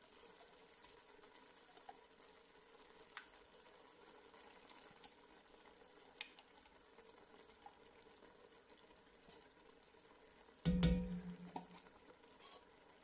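Faint sizzling of a pot of butter, celery and onion cooking on the stove, with a few small clicks, then near the end one loud clunk with a short low ring as canned soup goes into the pot.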